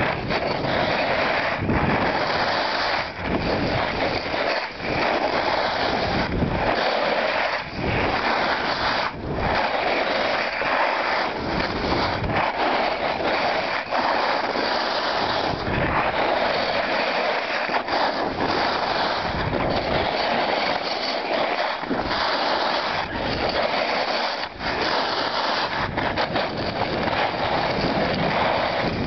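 Wind rushing over the microphone and the hiss of sliding over snow during a fast descent of a ski slope, steady, with brief dips in loudness now and then.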